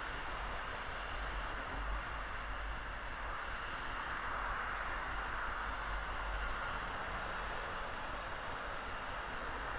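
Freight train of tank wagons rolling along curved track: a steady rushing rail noise with a thin, high-pitched wheel squeal held throughout.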